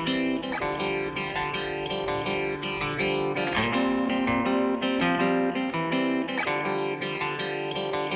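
Background music led by guitar, with plucked notes and a steady rhythm.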